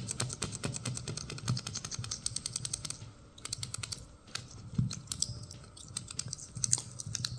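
Excess cured windshield-repair resin being scraped off the glass in quick short strokes, a rapid, uneven run of sharp clicks and ticks.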